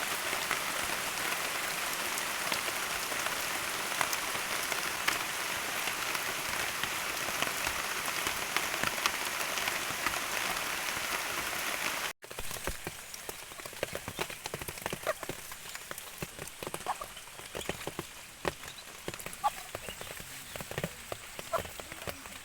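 Steady rain falling for about twelve seconds, then a sudden cut to lighter dripping with scattered short animal calls.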